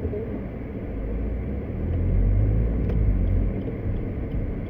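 Low road and engine rumble heard inside the cabin of a Suzuki Baleno RS being driven slowly through town, swelling louder for about two seconds in the middle, with a faint click near the middle.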